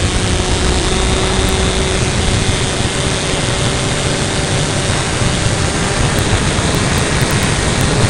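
Motor and propeller of a Kyosho Calmato RC model plane in flight, heard from a camera mounted on the plane: a loud, steady rush of noise with a faint steady hum running through it.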